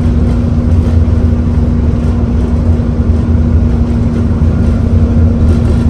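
Bus engine running steadily: a heavy low rumble with a constant hum over it.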